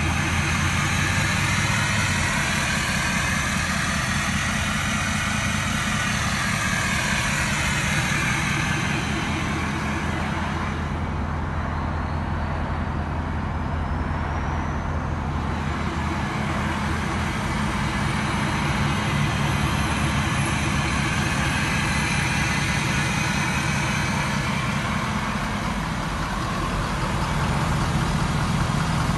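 2017 Ford F-250 pickup's engine idling steadily.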